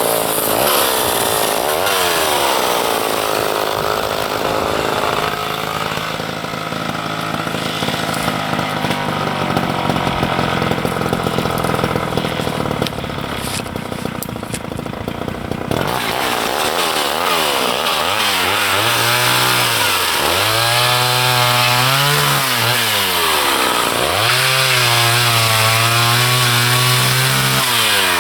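Gas chainsaw cutting wood. The engine runs at a steady pitch under load for about the first half, then revs rise and fall several times in the second half.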